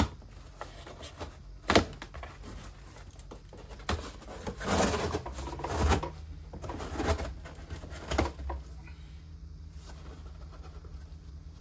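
Scissors cutting open packing tape along the seam of a cardboard box: a sharp click about two seconds in, a longer scraping stretch of tape being slit in the middle, then a few light knocks from handling the cardboard.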